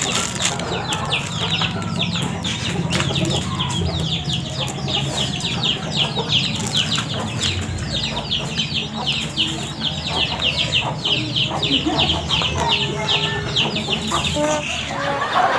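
Chickens peeping: a steady stream of short, high, falling chirps, several a second, over a low steady hum.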